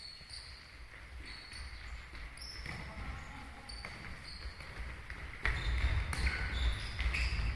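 Sports shoes squeaking again and again on a sports hall floor during a futsal game, with thuds of the ball and running footsteps echoing in the large hall; the play gets louder about five and a half seconds in.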